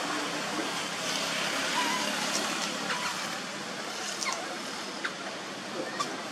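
A steady rushing noise that swells over the first couple of seconds and then slowly eases, with a few faint, brief high sounds over it.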